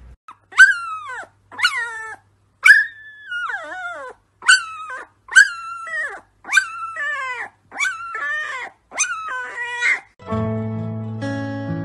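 Husky puppy howling in a string of about ten short, high calls, roughly one a second, each sliding down in pitch. Near the end, acoustic guitar music comes in.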